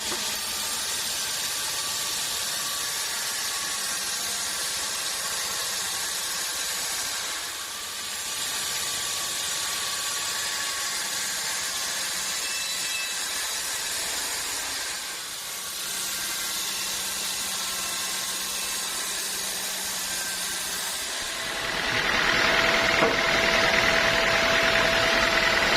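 Sawmill machinery running steadily with a strong hiss. About 21 seconds in it gets louder and a steady whine joins it.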